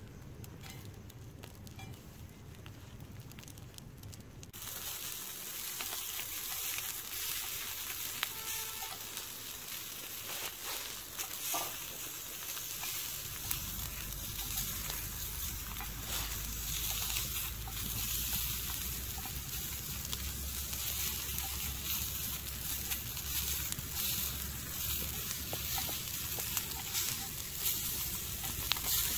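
Black tiger prawns sizzling on a hot iron pan over a wood fire, with scattered crackles and pops. The sizzling comes in about four seconds in and then keeps going steadily.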